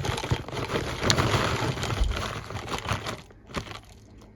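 Dry rustling and crinkling with many small clicks as pecans and their packet are handled, dying down after about three seconds.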